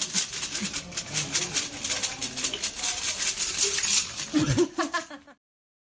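Rapid, dense rattling clicks of small hard objects being shaken, with a short voice sound just before the audio cuts off about five seconds in.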